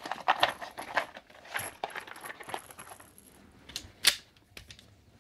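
Brass .357 Magnum cartridges clinking and rattling in their box and plastic tray as the ammunition is opened and handled, with one sharp click about four seconds in.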